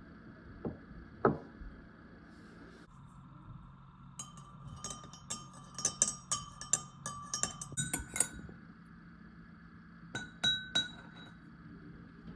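A spoon clinking against a glass cup, stirring with a quick run of ringing clinks for about four seconds, then two more clinks near the end. A single sharp knock comes about a second in.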